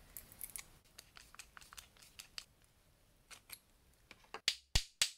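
Light scratching and small clicks of hands and hand tools working a carbon-fibre molding on its aluminium tool, with three louder sharp clicks in the last second as a screwdriver is used on it to work the part free.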